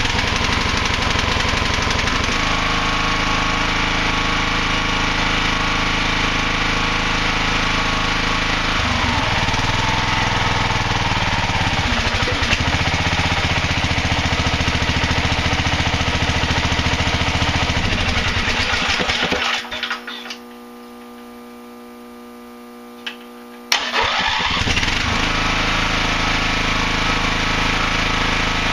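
Briggs & Stratton 18.5 Intek engine running steadily on its newly installed vacuum fuel pump, its note shifting about a third of the way in. About two-thirds through it is shut off and dies away, then after a few seconds it restarts at once and runs again.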